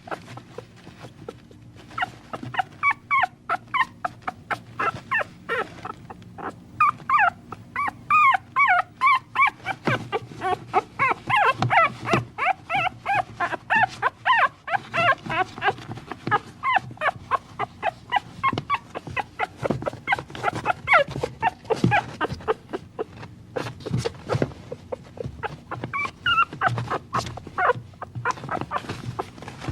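Puppies whimpering and yipping in many short, high-pitched cries, thickest in the middle stretch.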